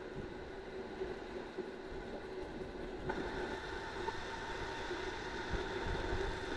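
Steady road noise of riding, with a faint even hum.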